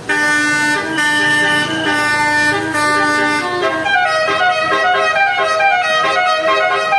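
Basuri telolet horn, a multi-trumpet musical bus horn, playing a melody in loud stepped tones, with several notes sounding together. The notes are held longer at first and change more quickly from about halfway through.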